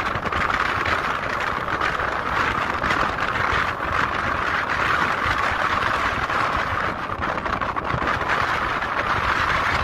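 Steady rushing noise of a volcanic eruption: a dense, even hiss with no breaks, loudest in the middle of the range.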